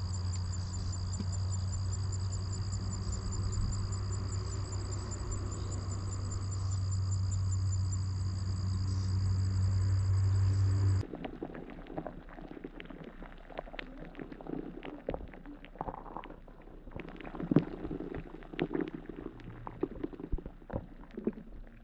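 Crickets chirping steadily over a low hum. About halfway through this cuts off sharply to underwater sound: muffled water noise broken by scattered clicks and taps.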